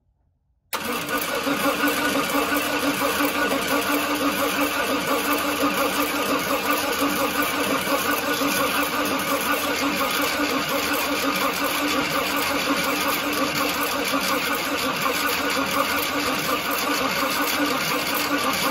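A 1966 Cadillac's V8 being turned over by its newly wired Powermaster starter, on the first crank after the solenoid jumper was rewired. The starter cuts in suddenly about a second in and turns the engine steadily, with a constant whine.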